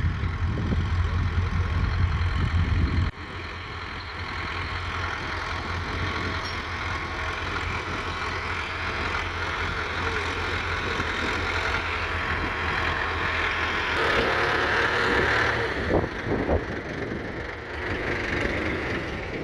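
Roadless Ploughmaster 75 tractor's engine running steadily. It is loud for about the first three seconds, then drops suddenly to a lower, even level, with a few short knocks near the end.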